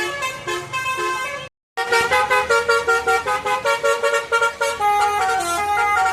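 Tour bus 'telolet' multi-note air horn playing a quick tune of short stepped notes, with a sudden cut to silence about one and a half seconds in before another horn tune starts over a low rumble.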